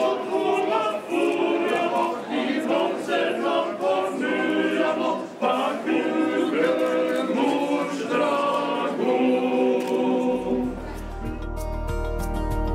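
A choir singing, several voices together. About ten seconds in, the singing gives way to instrumental music with a deep held bass note.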